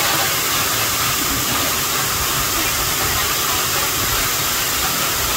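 Waterfall running with a steady, even rush of water.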